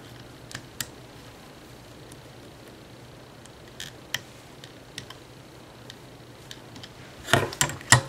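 Scattered small clicks of a metal-tipped hook on the plastic pegs of a rubber-band loom as bands are hooked up and looped over, with a cluster of louder knocks near the end as the loom is handled.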